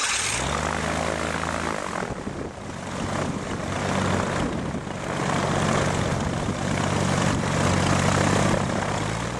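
Chevrolet auto-conversion aircraft engine on a test stand, turning a propeller, just after starting. It runs up in pitch over the first second or two, then keeps running with its level rising and falling a little.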